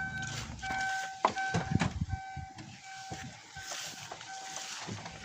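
Car's electronic warning chime beeping steadily, about two beeps a second, with a few scattered knocks.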